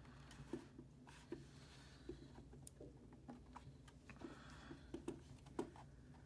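Faint, scattered small clicks and taps from hands working the reference blower cooler of a GTX 980 graphics card loose from its circuit board, over a quiet room hum.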